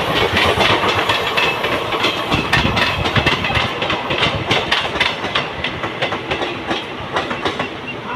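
Train running close by, its wheels clattering rapidly over the rail joints in a dense run of clicks, growing a little quieter near the end.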